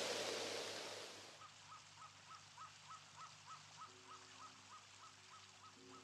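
Rhythmic night chirping, one short call repeated about three times a second, follows a hiss that fades out in the first second or so. Faint held music notes come in about four seconds in.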